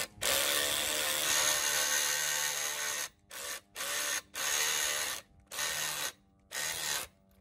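Cordless drill driver turning a socket to run a bolt into a steel hitch bracket. It runs for about three seconds, then in five short bursts as the bolt is driven home.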